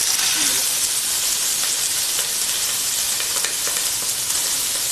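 Washed sella basmati rice sizzling steadily in hot oil as it is sautéed.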